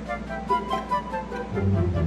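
Background music: a melody of short notes over a bass line with a steady beat.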